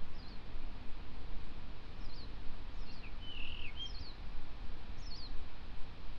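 Male blue rock thrush calling: a series of short, high notes that fall in pitch, roughly one a second, with a brief lower warbled phrase about halfway through, over a steady low rumble.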